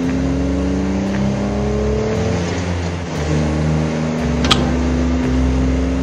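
Car engine running and revving, its pitch climbing slowly and dropping back a couple of times, with one sharp click about four and a half seconds in.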